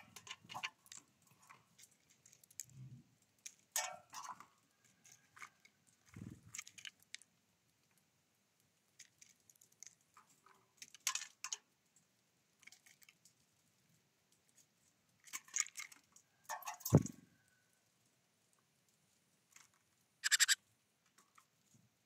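Great tits pecking and hammering at sunflower seeds on a wooden feeder tray: scattered sharp taps and crunches, with a few soft thumps. The loudest is one sharp knock with a low thud about three-quarters of the way through.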